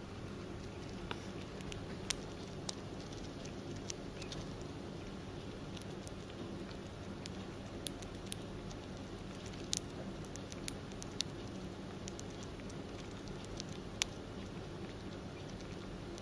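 A hamster cracking and nibbling sunflower seed shells with its teeth: scattered, irregular sharp little clicks over a steady low hum.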